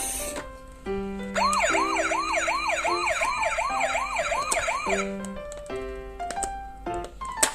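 Ambulance siren in a fast yelp, rapid rise-and-fall sweeps about three a second, starting about a second and a half in and stopping at about five seconds. Light keyboard music plays throughout.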